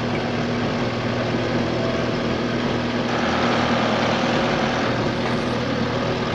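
An engine idling steadily at a constant pitch.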